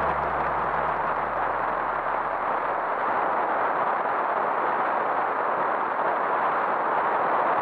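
Wind rushing over the microphone of a moving motor scooter, with the scooter engine's low steady note underneath that fades away about two and a half seconds in.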